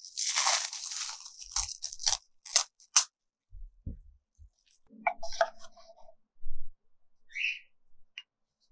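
Painting supplies being handled on a work surface: a crunchy rustle for about three seconds, then scattered soft knocks and a few light clinks.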